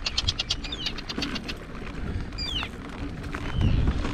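Arctic terns giving alarm calls over their colony. A rapid high chattering series stops about half a second in, followed by several short, harsh calls that slide downward in pitch. A low rumble of wind and riding noise sits underneath.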